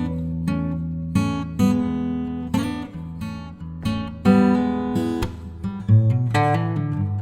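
Background music: acoustic guitar strumming chords, a new strum about every half second.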